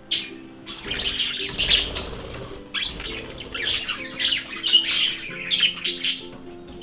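Budgerigars chattering: a stream of quick squawks and scratchy chirps, with the loudest calls in the second half.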